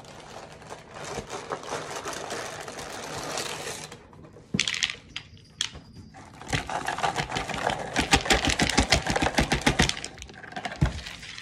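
Reese's Puffs cereal poured from the box into a bowl: a rattling patter of small pieces hitting the bowl, which stops a little under halfway through and starts again in a denser run of rapid clicks for about three seconds. A single thump follows near the end.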